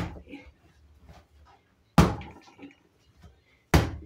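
Soft bread dough slammed down onto a wooden countertop while being kneaded by hand, three heavy thuds a little under two seconds apart, with quiet handling between them.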